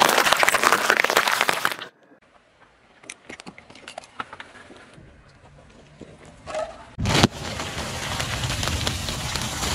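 A car tyre rolling over and crushing things. First comes a loud, dense crunching for about two seconds as cucumbers are squashed. Then scattered sharp cracks come as plastic pens snap, and about seven seconds in a thump is followed by steady crunching as the tyre rolls onto a bag of cheese puffs.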